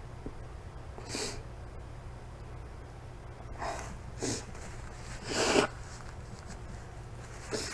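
A woman sniffing sharply through her nose about five times as she works up to a sneeze, the longest and loudest sniff swelling over half a second about five and a half seconds in.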